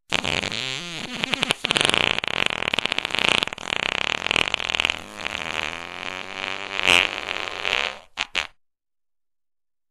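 One long fart lasting about eight seconds, wavering up and down in pitch with a fluttering rattle, ending in two short puffs.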